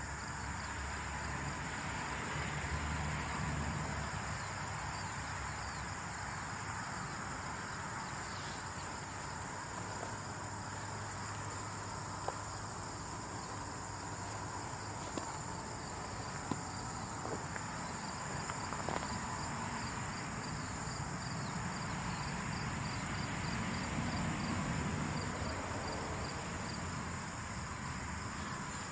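Insect chorus ambience: a steady high insect drone with trains of rapid cricket-like chirping, over a low rumbling bed, with a few faint ticks scattered through.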